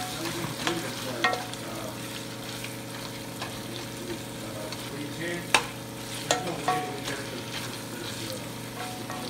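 Ground pork and onions sautéing with a steady sizzle in a hot pot while a wooden spoon stirs and breaks up the meat. Scattered knocks of the spoon against the pot run through it, the sharpest about five and a half seconds in.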